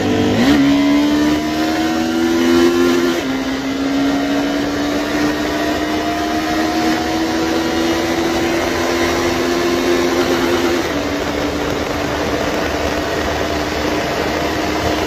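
Honda CBR250R's single-cylinder engine revving up at the start, then pulling steadily with its pitch slowly climbing as the bike gains speed. The pitch drops at two upshifts, about three seconds in and again near eleven seconds. Wind rushes steadily across the helmet microphone.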